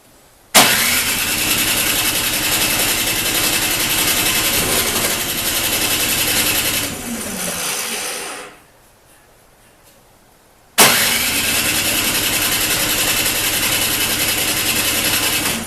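Toro snowblower's Briggs & Stratton engine being cranked over by its starter twice without catching: each try starts suddenly and runs steadily for several seconds, and the first one winds down to a stop. A snowblower that won't start.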